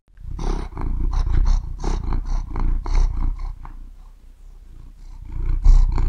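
Domestic cat purring close to the microphone: a low, fast-pulsing rumble that swells and fades in waves with its breathing.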